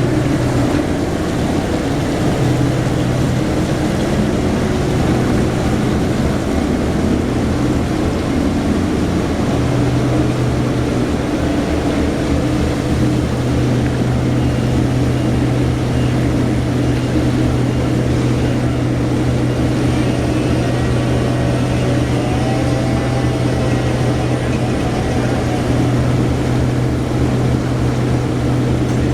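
Heavy engine machinery running steadily with a low hum, which dips briefly twice.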